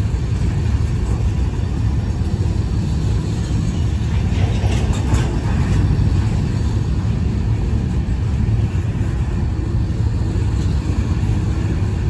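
Covered hopper cars of a freight train rolling past: a steady low rumble of steel wheels on rail.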